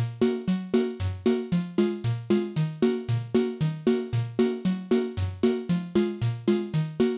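Background music: a bouncy synthesizer tune with a steady pulse of about three notes a second over a stepping bass line.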